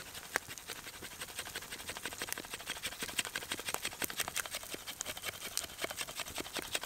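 Steaks sizzling over a campfire, with the fire crackling: a dense, irregular run of sharp ticks and pops.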